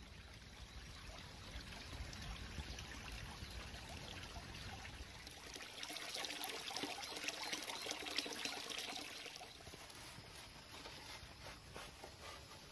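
Water trickling and pouring steadily into a small pond, a little louder about halfway through.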